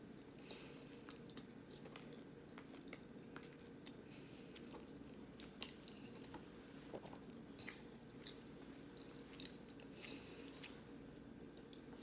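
Faint chewing, with scattered soft mouth clicks and smacks over a low steady hum.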